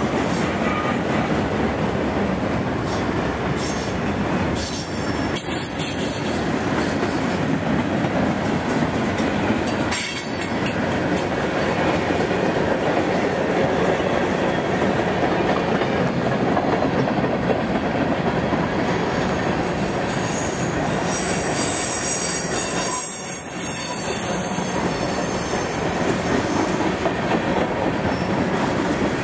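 Mixed freight cars of a long manifest train rolling steadily past at close range: continuous rumble and rattle of steel wheels on rail, with a high wheel squeal for a few seconds past the middle.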